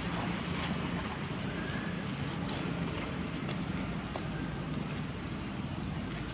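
Steady, high-pitched insect drone, like a cicada chorus, over a low outdoor rumble, unchanging throughout.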